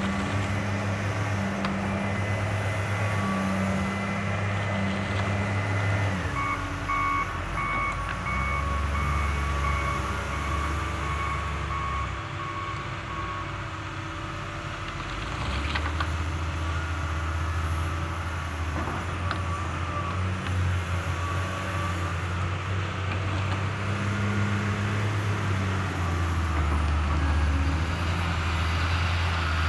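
Diesel engine of a hydraulic excavator running under load as it digs and dumps soil, its note shifting as the machine works. A reversing alarm beeps in an even pulse for several seconds about a quarter of the way in.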